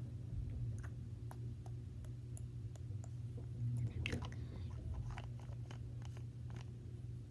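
A child chewing close to the microphone, with small sharp clicks and crackles, over a steady low hum. A brief sound of her voice comes about four seconds in, and near the end the clicks come more often as she handles a pink plastic package.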